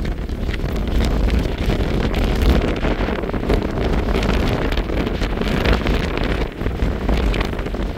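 Gusty wind blowing across the microphone: a loud, rough rumble that swells and eases.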